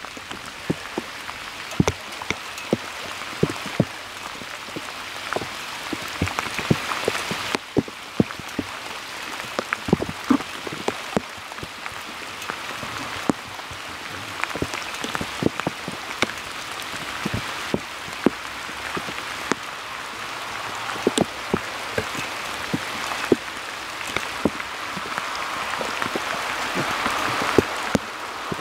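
Steady rain falling, an even hiss with many sharp taps of individual drops landing close by.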